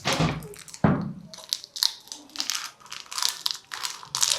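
Packaging crinkling and rustling as it is handled and opened: a run of irregular crackles, with louder crunches at the start and just under a second in.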